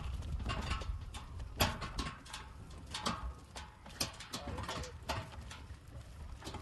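Irregular clatter of sharp knocks and clicks, about one or two a second, over a low rumble; a knock about one and a half seconds in is the loudest.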